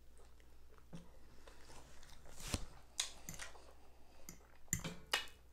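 A person chewing a mouthful of fried liver and onions, with a few short, sharp clicks of a fork against the plate.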